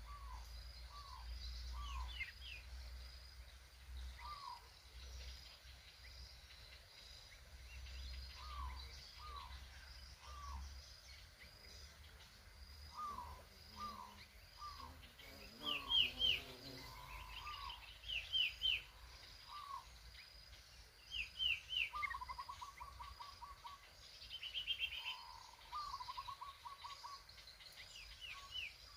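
Bulbuls calling: short rising chirps throughout, and from about halfway on, quick falling three-note phrases and short trills in answer. A faint high note repeats steadily about every 0.7 seconds behind them.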